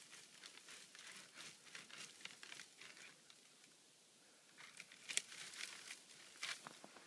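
Faint rustling and crinkling close to the microphone, made up of many small crackles, with a quieter stretch around the middle and a few sharper crackles near the end.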